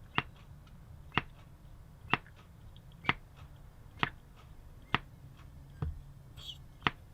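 Primer bulb on a McCulloch strimmer being pressed repeatedly, a sharp click about once a second, eight presses, drawing petrol up the feed line into the bulb.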